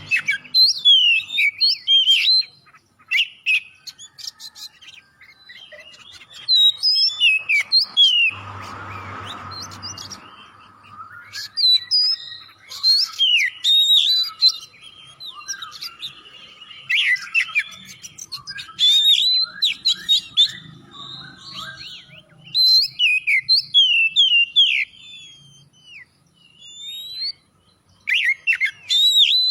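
Oriental magpie-robin singing vigorously: rapid runs of whistled, sweeping notes and chirps in bursts with short pauses between them. A brief rough noise with a low hum comes about eight seconds in.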